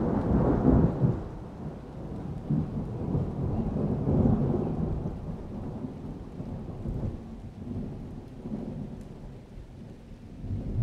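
Rolling thunder: a loud low rumble at the start that dies away, swells again about four seconds in, then fades off.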